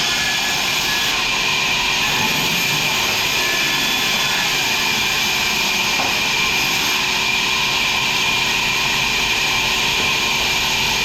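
Sawmill machinery running with a steady, unbroken high-pitched whir.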